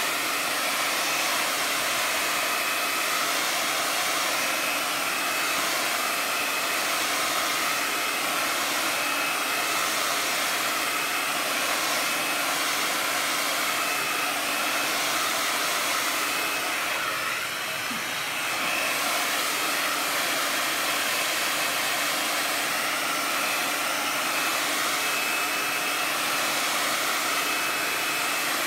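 Hand-held hair dryer blowing steadily, used to dry wet acrylic paint on paper: a loud rush of air over a thin motor whine, easing off slightly for a moment a little past halfway.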